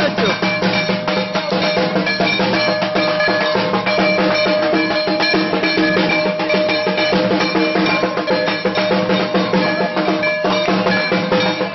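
Fast, continuous drumming with clanging metal percussion ringing over it, the steady rhythm of a Durga Puja immersion procession.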